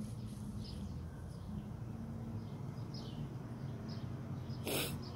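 Scattered faint chirps of small birds over a steady low hum, with a brief loud rustle near the end.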